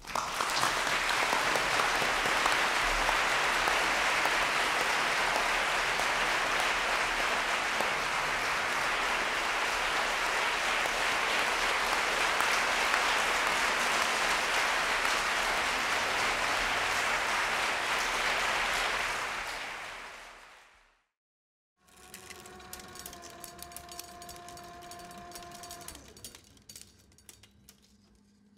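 Audience applauding steadily, a dense clapping that runs for about twenty seconds and then fades out. After a brief silence, a quieter stretch of a few steady tones follows near the end.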